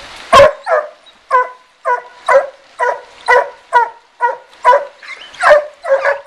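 Two Walker coonhounds barking treed at a den tree: a steady run of loud chop barks, about two a second, at times overlapping. It is the treeing bark that tells the hunter the dogs have a raccoon treed.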